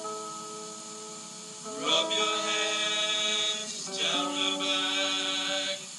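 A song played from a cassette on a home stereo: held notes, then voices singing from about two seconds in.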